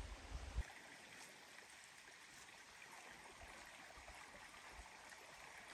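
Faint, steady trickle of a small forest stream. A low rumble stops abruptly about half a second in.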